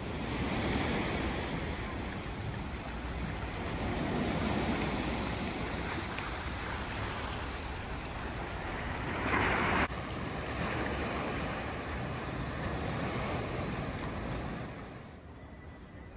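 Sea surf washing onto the shore, with wind on the microphone; the noise swells and ebbs, with a louder surge about nine seconds in that stops abruptly. The sound drops away quieter near the end.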